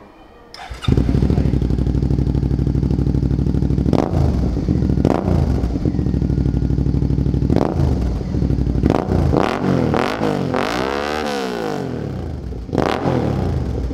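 Suzuki V-Strom 650's V-twin engine running through an aftermarket Akrapovič slip-on exhaust, a throaty, 'más ronquito' note. The engine kicks in suddenly about a second in and idles, with short throttle blips and one longer rev that climbs and falls back.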